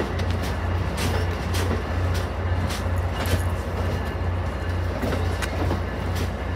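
Stainless-steel Amtrak passenger cars rolling past at speed: a steady rumble of wheels on the rails with a low hum and sharp clicks every half second to a second.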